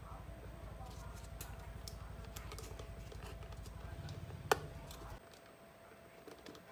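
Small clicks and rustles of wires and plastic lamp parts being handled, with one sharp click about four and a half seconds in. Under it a low rumble runs and cuts off suddenly about five seconds in.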